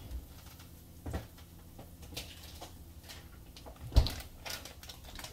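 Kitchen cupboard or door being handled: a few light knocks and clicks, then one sharp thump about four seconds in as it is shut.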